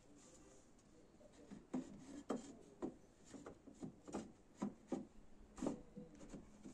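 Wooden boards being handled and fitted together: a string of irregular light knocks and scrapes of wood on wood, starting about two seconds in.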